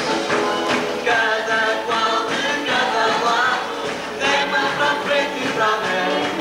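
Portuguese carnival song: sung vocals over a full band with percussion, continuing without a break.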